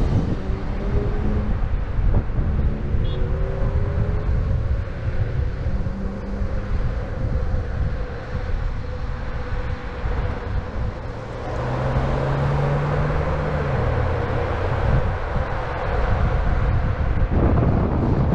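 Road traffic passing on a multi-lane road, with wind rumbling on the microphone; a vehicle's engine hum stands out about two-thirds of the way through.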